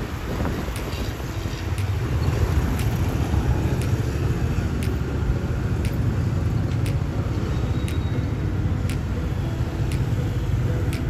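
Dense rush-hour street traffic heard from a moving motorbike: a steady low rumble of motorbike, car and bus engines.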